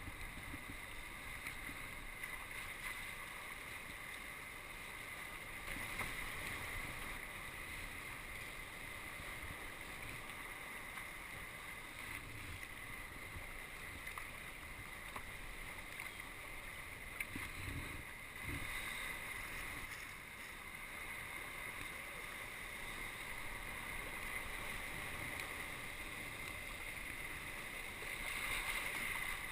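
A sea kayak being paddled, with a steady wash of water along the hull and a few short low thumps.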